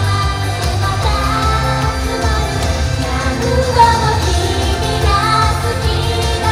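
Japanese idol pop song performed live: young women singing into microphones over a backing track through the stage speakers, with a steady bass beat under the vocals.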